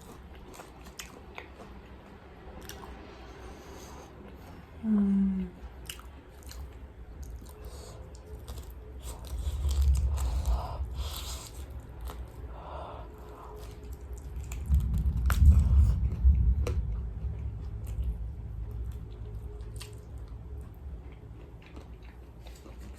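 Close-up chewing and biting of crispy fried chicken, with small crunches and wet mouth clicks throughout. A brief hum of the voice comes about five seconds in, and low rumbling bumps swell around ten and fifteen seconds in.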